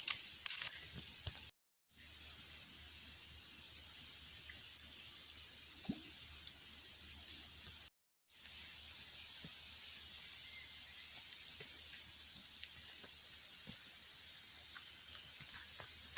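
Steady, high-pitched chorus of insects, a continuous shrill hiss, broken twice by brief moments where the sound cuts out completely.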